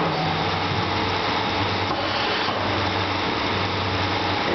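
Electric motor of a YTM-D rivet stripper (brake-shoe rivet punch-out machine) running steadily with a low hum.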